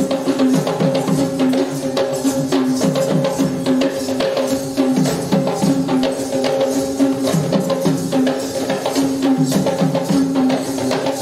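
Kandyan geta bera drums beating a fast, even rhythm for a Kandyan dance, with a steady held tone sounding over the drumming.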